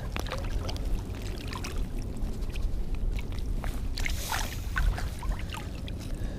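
Shallow water sloshing and splashing, in short irregular bursts, around a wading angler landing a hooked speckled trout. A steady low rumble runs under it.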